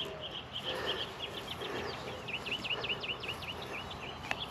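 A songbird singing a rapid run of short chirps and quick down-slurred notes. Under it is faint rustling of loose soil and mulch being smoothed by hand.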